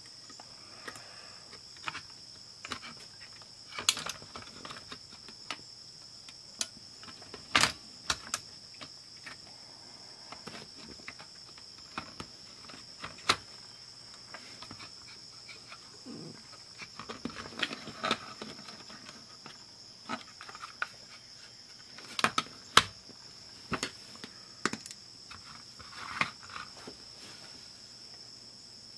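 Irregular small clicks, taps and rattles of a portable cassette player's plastic chassis and circuit board being handled and pressed back together, with a few sharper snaps, the loudest a pair about two-thirds of the way in. A steady high-pitched hiss runs underneath.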